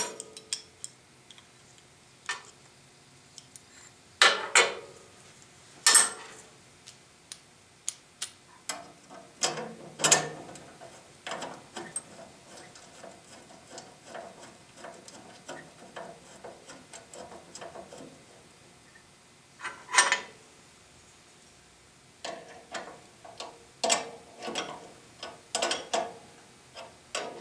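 Steel bandsaw blade-guide parts clinking and clanking as they are taken apart, handled and set down on the saw's metal table. Scattered single knocks, a few of them sharp and loud, with quieter small clicks between and a quicker run of clinks near the end.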